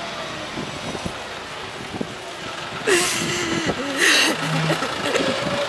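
A woman crying, with a wavering, drawn-out wail and sharp sobbing breaths starting about three seconds in. A vehicle engine runs steadily in the background.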